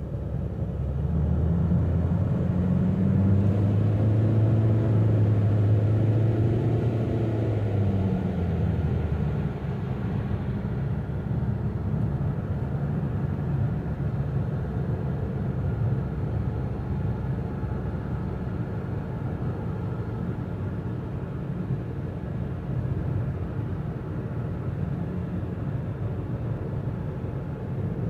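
A 2016 Toyota Avensis III 1.8 with a CVT gearbox, driving along with a low hum that comes in about a second in, holds loud for several seconds and fades out after about nine seconds, leaving steady road rumble. The owner asks whether the hum comes from the CVT.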